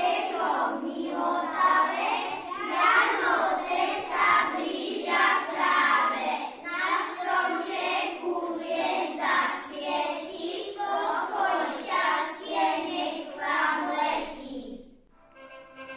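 A group of young children singing together in unison, with no instrument audible. The voices stop about a second before the end, and recorded instrumental music starts.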